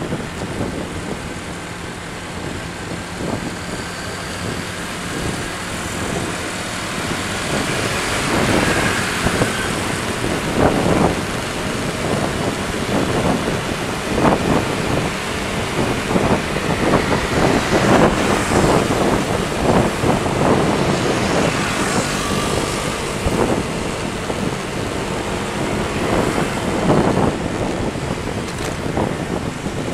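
Wind buffeting the microphone of a motorbike-mounted camera while riding through traffic, with road and engine noise underneath. It grows louder in the middle as the ride picks up speed and then eases slightly.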